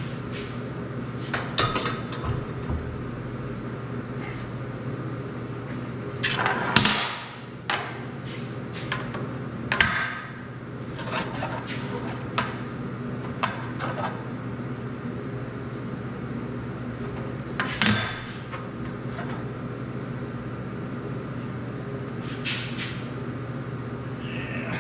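Irregular metal clanks and knocks as steel pipe sections are clamped down and a long level is set on the pipe, loudest in a cluster of knocks several seconds in. A steady background hum runs under them.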